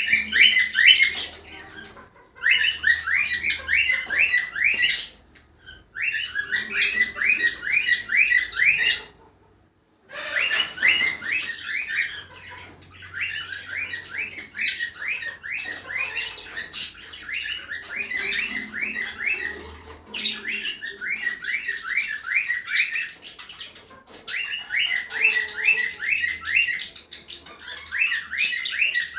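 Cockatiels chirping and squawking in quick repeated notes, several a second, in bouts of a few seconds broken by short pauses.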